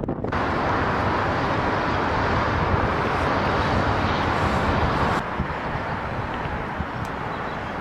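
Steady rushing of wind and distant city traffic, heard from high above the city. The sound changes to a thinner rush about five seconds in.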